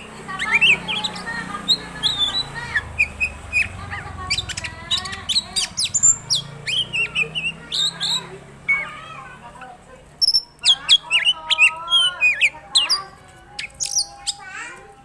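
Oriental magpie-robin singing a fast, varied song of whistles, chirps and sweeping notes, with mimicked phrases of other birds mixed in; the notes come thicker and louder in the second half.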